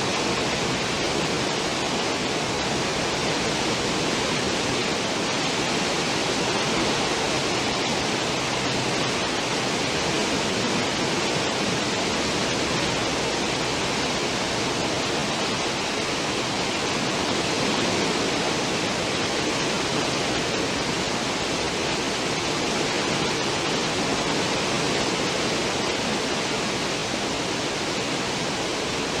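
Cruise ship's stern wake: a steady rush of churning water.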